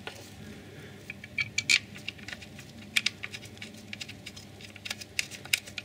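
Irregular small clicks and taps of small bolts and gloved fingers as the coil-pack retaining bolts are placed and started by hand.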